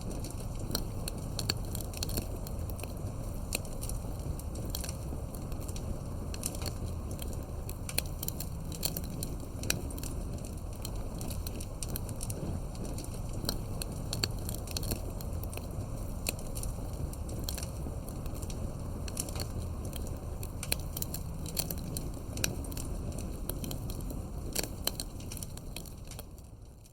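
Campfire burning, with frequent sharp crackles and pops over a low, steady rush of flame. The sound fades out at the very end.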